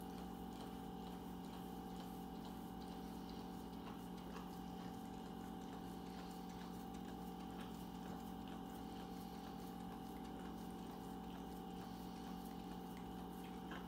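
Dog licking ice cream out of a tub: a steady run of faint wet licks and smacks over a constant low hum.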